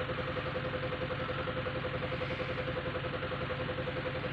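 Mitsubishi Fuso 4M42 four-cylinder common-rail diesel engine idling steadily at about 620–650 rpm with an even pulsing beat and a steady whine. The engine is being checked for a misfire, with a fault code for cylinder 4's injector.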